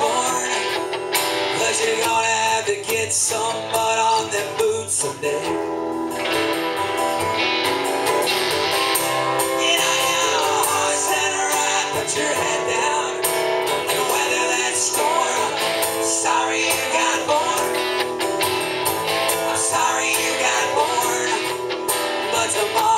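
Live guitar duo: an acoustic guitar strumming chords while an electric guitar plays melodic lines with bent notes over it.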